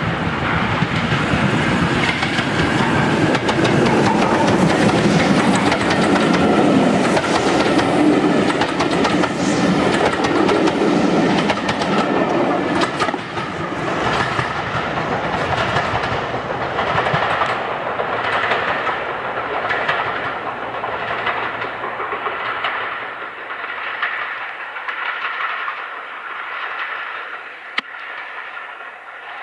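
Steam train passing: the working locomotive and its coaches go by loudly, then the wheels clatter over the rail joints in a regular rhythm of about one beat a second, fading as the train draws away.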